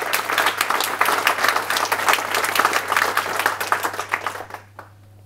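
Audience applauding at the end of a talk, the clapping dying away near the end.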